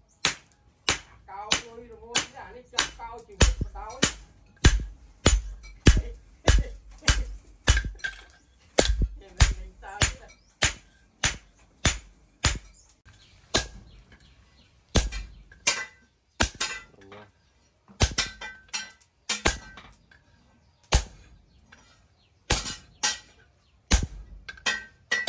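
Hand hammer striking a red-hot cleaver blade on a steel post anvil, forging it: sharp metal-on-metal blows about two to three a second, with a few short pauses in the second half. Near the end the blows land on a top tool held in tongs against the blade.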